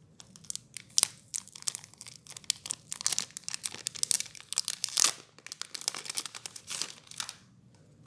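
Wrapper of a pack of sticky notes being torn open and crinkled by hand: a rapid, irregular run of crackles and tearing that stops about seven seconds in.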